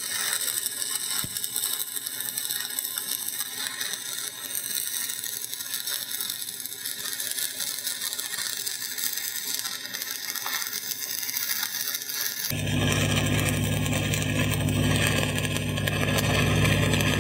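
Shielded metal arc (stick) welding on steel pipe: the arc of a cellulose electrode crackles and sizzles steadily as the welder runs a downhill fill pass. About twelve seconds in the sound changes abruptly, and the steady drone of the engine-driven welding machine running comes in under the arc crackle.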